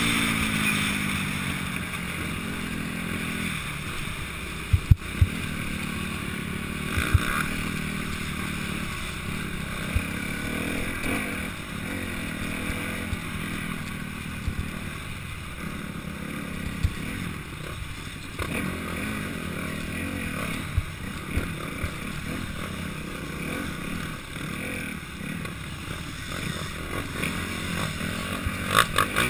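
Enduro dirt bike engine running, heard from on board while riding a rough dirt trail; its note drops in the first few seconds. Occasional sharp knocks sound over it.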